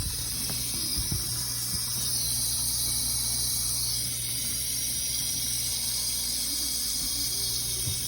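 Whirlpool dishwasher's circulation pump running, a steady low hum under a constant rush of water. Water is leaking from its motor housing, which has a hairline crack.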